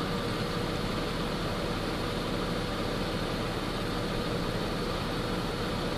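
Infiniti Q50's VR30DDTT twin-turbo V6 idling steadily, heard from inside the cabin under the even hiss of the climate-control fan.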